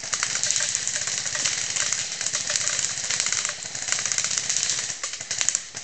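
Airsoft guns firing rapid bursts: a fast run of sharp clicks over a steady hiss.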